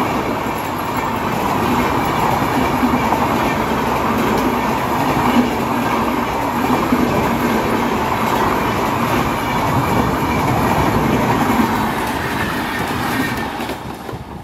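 An express train of LHB passenger coaches passing close by at high speed, its wheels running on the rails in a steady loud rush. The sound drops away sharply near the end as the last coach goes past.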